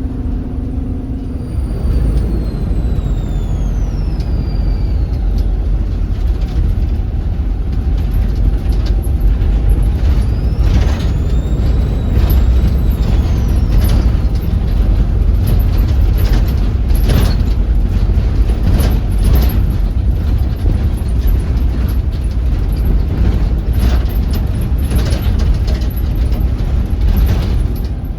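Volvo B7RLE bus's diesel engine running under load with a whistling turbocharger: a thin whistle falls in pitch a couple of seconds in, and another rises and falls about halfway through. Sharp knocks and rattles come through the steady low rumble in the second half.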